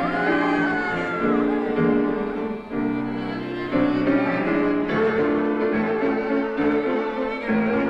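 Instrumental string music, violin and cello, with held notes that change about once a second and a high sliding note at the start.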